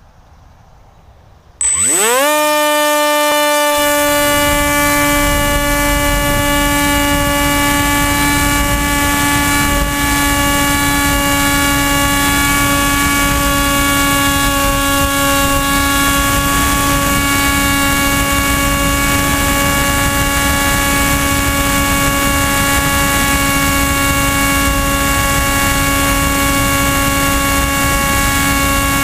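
AXN Floater Jet RC plane's electric motor and propeller spinning up sharply, a rising whine that levels off into a steady high tone, with loud wind rush over the camera mounted on the plane.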